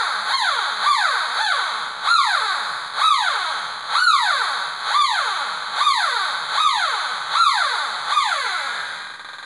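Homemade pulse-induction metal detector's audio signal answering a silver object swept past its search coil: a target tone that shoots up in pitch and glides down with each pass, about once every 0.8 seconds, fading near the end.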